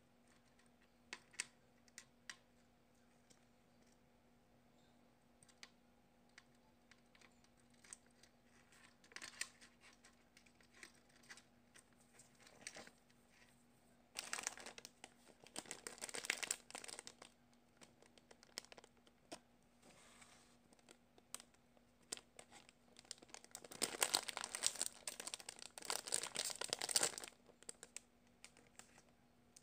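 Clear plastic packaging crinkling as squishy toys are handled: scattered light clicks at first, then two spells of louder, dense crinkling about halfway through and again a few seconds before the end, as a penguin cupcake squishy is taken out of its plastic bag.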